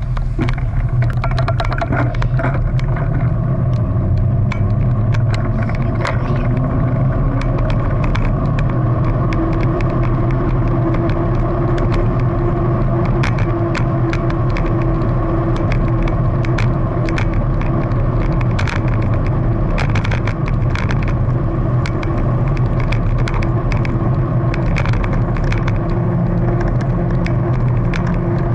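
Mountain bike rolling fast down a paved road, heard from a camera riding along: a steady loud rumble of wind on the microphone and tyres on asphalt, with a hum that rises slightly in pitch and frequent small rattles and clicks from the bike over bumps.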